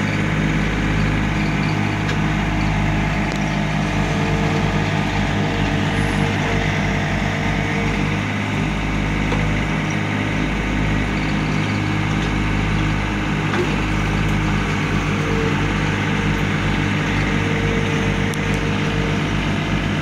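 John Deere compact tractor's diesel engine running steadily under load while the rear backhoe digs, with a higher hydraulic hum that comes in twice, for a few seconds each time, as the boom and bucket are worked.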